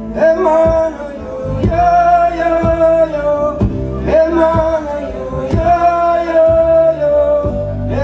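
Live band: a man singing long held notes into the microphone over acoustic guitar, bass and a steady beat.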